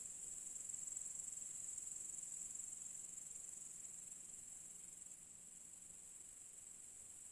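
Crickets trilling steadily in one continuous high-pitched chorus.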